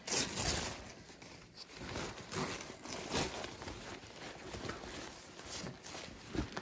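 Paper wrapping around potted plants rustling and crinkling as hands pull and unwrap it, in irregular bursts, with the loudest rustle right at the start.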